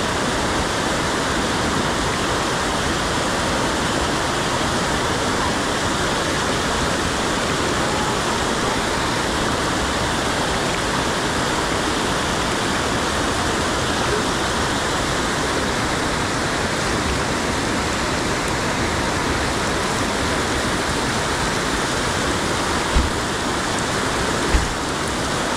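Fast-flowing mountain stream rushing over rocks in a stone channel, a steady loud wash of water, with two brief low thumps near the end.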